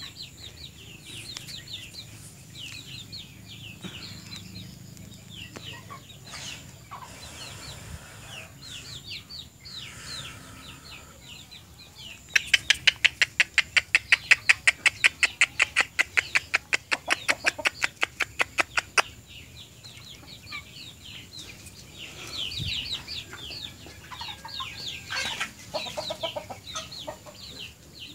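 Free-range chickens foraging, with clucking and short, high, falling peeps repeating throughout. In the middle, a loud, fast, even series of sharp pulses, about six a second, runs for about six seconds and then stops.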